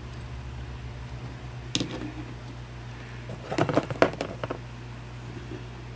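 Hands handling small items and their packaging: a sharp click a little under two seconds in, then a short flurry of clicks and rustling around the middle, over a steady low hum.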